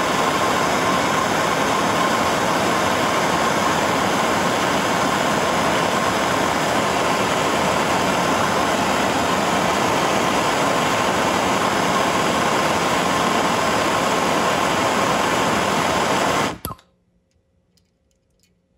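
Handheld gas torch burning with a steady hiss as it heats a brass cable nipple for soldering. The flame is shut off suddenly about 17 seconds in.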